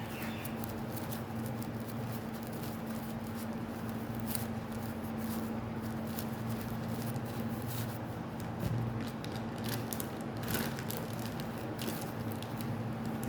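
Plastic packaging crinkling and rustling as sanitary pads are handled, in scattered short clicks and rustles. A steady low hum runs underneath.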